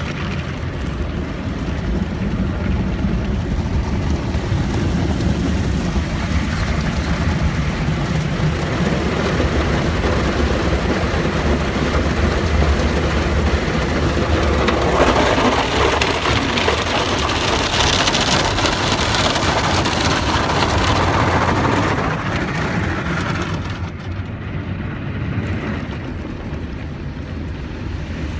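Automatic car wash heard from inside the car: water spray drumming on the glass and body over a low machinery rumble. It grows louder about halfway through and eases off a few seconds before the end.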